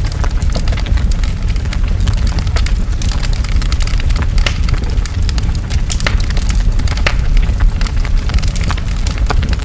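Large forest fire burning: a continuous deep rumble with dense, sharp crackling and popping of burning wood throughout.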